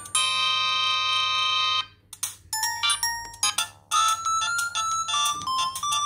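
Samsung SGH-X160 flip phone playing built-in polyphonic ringtone previews through its small speaker. A held synth chord cuts off about two seconds in as the next ringtone is selected, and a new tune of short, bright electronic notes starts and runs into a stepped melody.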